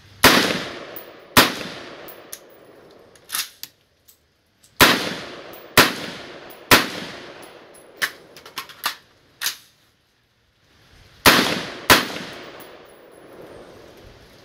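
Smith & Wesson M&P15 Sport II 5.56 mm rifle firing seven loud shots in three groups (two, then three, then two), each trailing off in echo. Quieter metallic clicks and clanks come in between while the rifle is handled.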